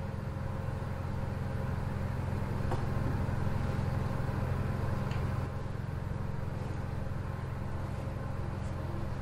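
A steady low motor hum, with a few faint ticks.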